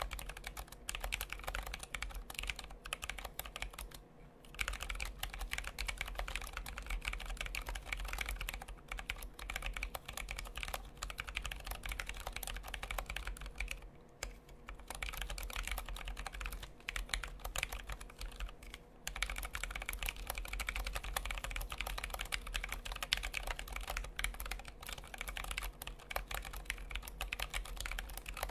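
Fast, continuous typing on a Tokyo60 60% mechanical keyboard with Zealios 67g tactile switches lubed with Krytox 205g0, fitted with GMK Dots keycaps. There are short pauses about four, fourteen and nineteen seconds in.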